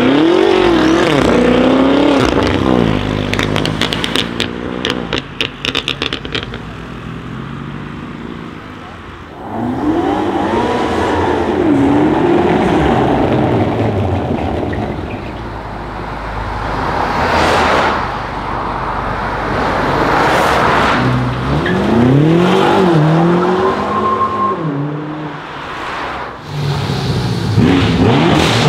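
Several BMW M cars with twin-turbo V8s accelerating hard one after another, the revs climbing and dropping through gear changes. A few seconds in, after the first pull, comes a rapid run of exhaust pops and crackles.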